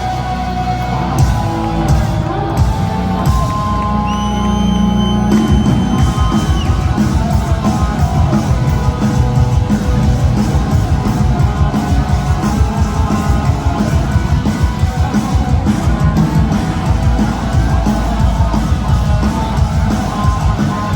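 Live heavy metal band playing at full volume: electric guitars over fast, dense drums, with a high held note about four seconds in.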